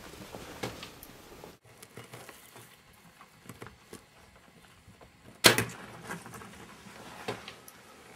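A bow shot: one loud sharp crack about five and a half seconds in, followed by a few lighter knocks and clicks. Before it there are faint scattered knocks, with a brief break about a second and a half in.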